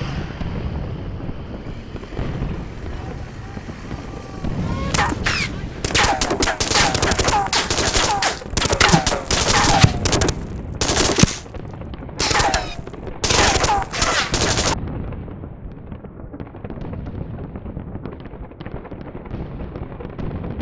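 Bursts of rapid machine-gun fire, several volleys from about five seconds in until about fifteen seconds, over a steady low rumble that carries on quietly after the firing stops.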